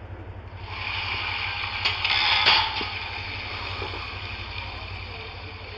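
Furby Boom toy's internal motor and gears whirring as it moves, starting about half a second in and loudest about two seconds in.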